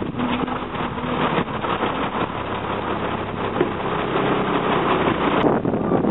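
Heavy diesel engines of a bus and a truck running close alongside each other at low speed, a dense steady rumble. About five and a half seconds in it cuts abruptly to a thinner engine rumble.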